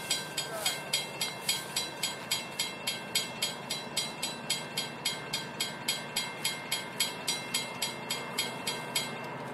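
Railroad grade-crossing warning bell ringing evenly at about three strikes a second, sounding as the crossing activates for an approaching train; it stops near the end.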